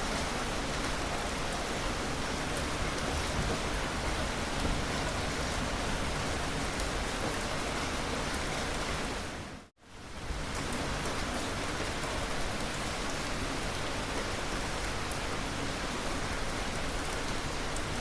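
Steady rain pattering on a surface. About halfway through, it dips briefly to silence and comes straight back.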